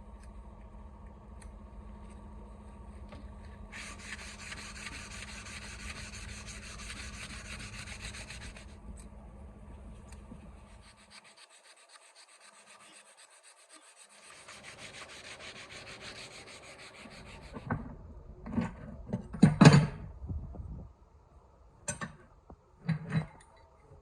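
A sanding machine hums steadily while abrasive rubs against the workpiece in a hissing pass, and the motor stops about eleven seconds in. Later there is more rubbing, then a run of sharp knocks and clatters from handling the work.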